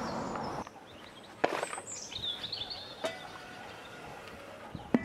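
A sharp knock about a second and a half in and a few lighter clicks near the end as a foil tray is set on a charcoal kettle grill and the metal lid is handled, with a bird chirping briefly in between.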